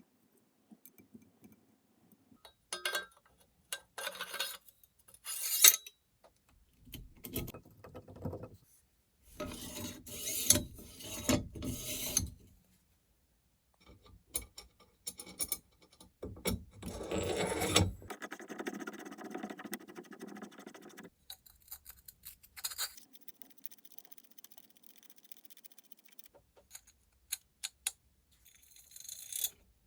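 Hand work on rifle parts: irregular bursts of scraping and rubbing, like filing or sanding, separated by pauses and scattered clicks and knocks.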